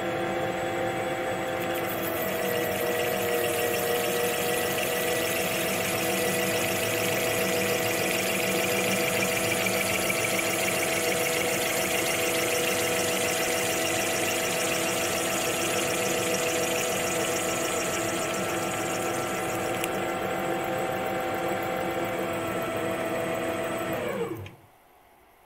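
Small DIY CNC lathe's spindle running at 400 RPM with a steady whine of several tones and a hiss while the tool faces a 3D-printed ABS part, throwing stringy chips. Near the end the whine drops in pitch and the lathe stops.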